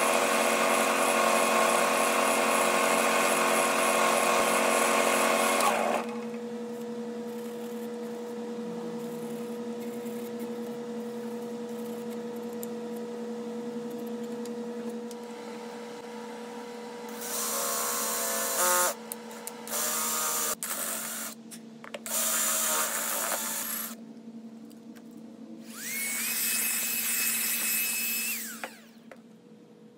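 Grizzly wood lathe humming steadily while a cloth rubs finish onto the spinning walnut bowl, loud for the first six seconds or so. The lathe then hums on more quietly, broken in the second half by several short louder bursts, the last with a whine that rises and then holds.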